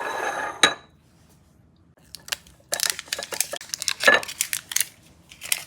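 Crinkly plastic wrapping being handled and peeled, a rapid run of crackles and tearing sounds with one heavier rustle midway. It is preceded by a short sound that ends in a sharp click in the first second.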